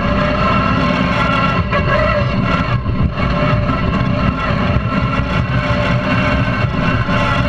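Lawn-tractor mud mower's small replacement engine running steadily under load while the tractor drives across muddy ground.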